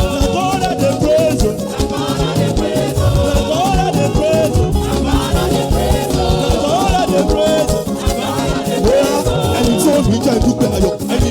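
Loud, upbeat praise-and-worship music played by a live band, with a dense, driving percussion groove under a bending melody line.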